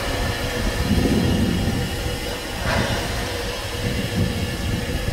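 Narrow-gauge steam locomotive moving slowly, giving a low, steady rumble and a brief burst of noise a little under three seconds in.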